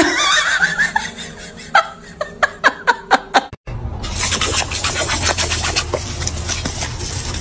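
A person laughing in a quick run of short bursts, which stops suddenly about halfway through. Then comes a steady hiss of water spraying from a garden hose nozzle while a dog snaps at the stream.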